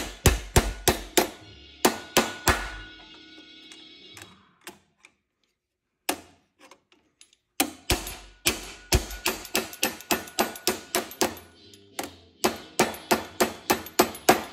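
Small hammer tapping a sheet-steel flange over a 3/16 wire held in wire edge pliers, staking the wire edge over; each blow rings off the metal. The taps come about three or four a second, with a pause of about three seconds midway.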